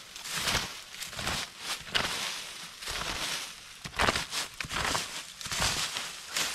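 Dry leaf litter, bark and dead wood crunching and crackling as they are grabbed and broken by hand. Irregular rustling with a few sharp cracks.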